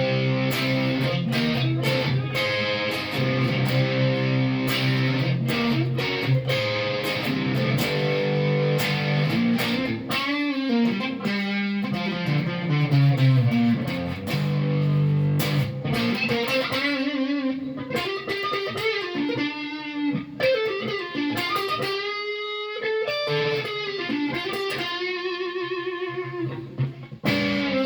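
Electric guitar through an amp: a Telecaster-style guitar fitted with a GFS humbucker in the neck position. Held chords ring for the first ten seconds or so, then give way to single-note lines with bent notes and vibrato.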